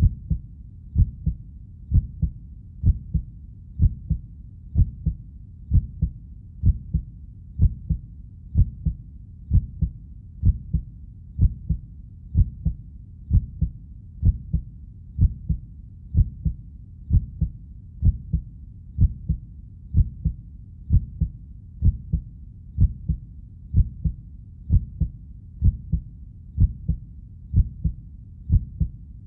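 Heartbeat: a steady lub-dub double thump repeating about once a second, the thumps low in pitch over a faint low hiss.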